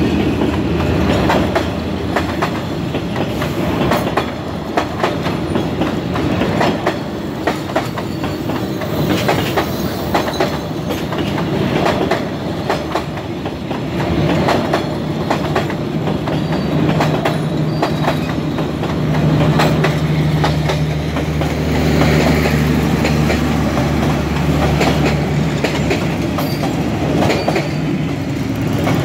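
Passenger coaches of a train rolling past, their wheels clicking irregularly over the rail joints. A steady low hum joins about halfway through.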